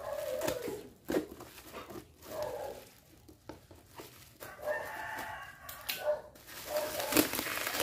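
A rooster crowing, one long call about halfway through, with a shorter call at the start, over the rustle and clicks of a package being opened.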